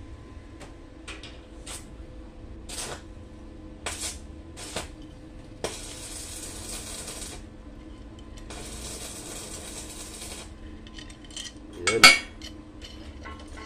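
Metal clinks and rattles from a homemade wrench made of a short piece of motorcycle chain on a steel bar as it is worked onto a small bolt, with two longer scraping stretches in the middle. Near the end, one loud clank of steel on a steel plate.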